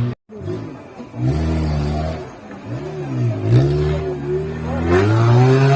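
Modified off-road 4x4's engine revving hard, its pitch rising and falling several times, then climbing and held high near the end. The sound cuts out for a moment just after the start.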